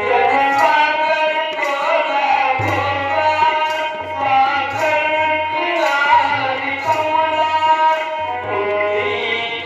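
Tabla keeping a steady beat under an electronic keyboard playing a melody, with a man singing along at a microphone.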